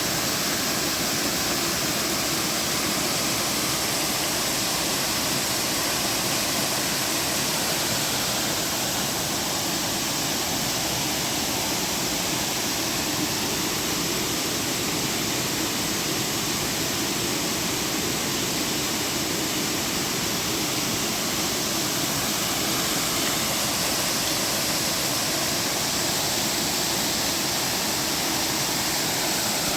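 Waterfall: water falling and rushing steadily.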